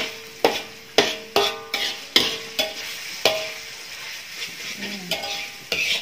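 Metal spatula clanking and scraping against a wok while stir-frying noodles that are being fried until dry, over a steady sizzle of frying oil. The clanks ring briefly, come about twice a second, and pause for a moment midway before starting again.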